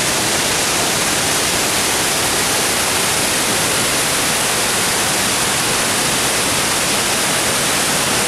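Waterfall: the steady, loud rush of Panther Creek Falls pouring down, an even hiss with no let-up.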